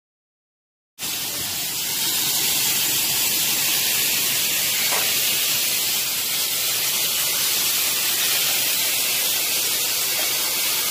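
A steady, loud hiss that starts suddenly about a second in and holds unchanged.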